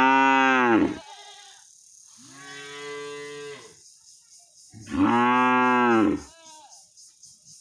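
Cow mooing three times. A long loud moo is already under way at the start, a quieter moo comes about two seconds in, and another loud moo comes about five seconds in.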